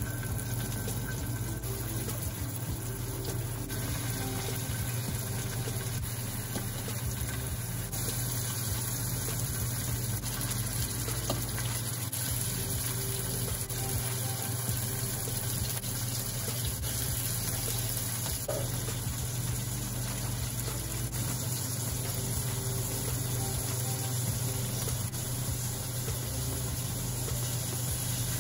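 Cubes of salmon and cod sizzling in hot oil in a stainless steel frying pan, a steady frying hiss that grows louder about eight seconds in as more pieces go into the pan.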